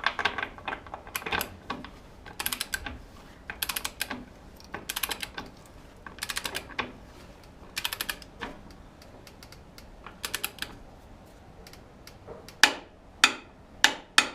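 Ratchet wrench clicking in short bursts of rapid clicks, stroke after stroke, as the motorcycle's rear axle nut is tightened to 100 Nm. Near the end come four louder single clicks.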